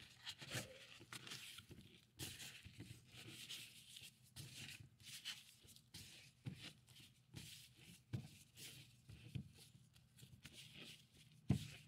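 Faint rustling of thin plastic food-prep gloves and soft patting as hands press cornstarch onto raw salmon fillets, with a few soft knocks, the loudest near the end.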